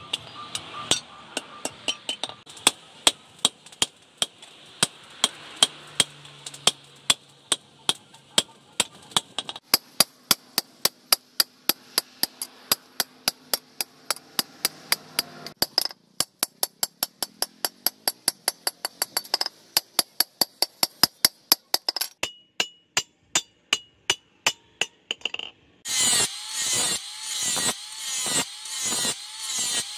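Hammer blows ringing on a leaf-spring steel cleaver blade laid on a steel post anvil, a long fast steady run of strikes. Near the end it gives way to an angle grinder grinding the blade, its sound swelling and falling about once a second as it sweeps across.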